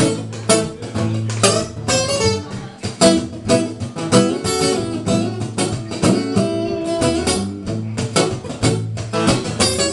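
Two acoustic guitars played together in a steady rhythm, strummed and picked, with no voice yet.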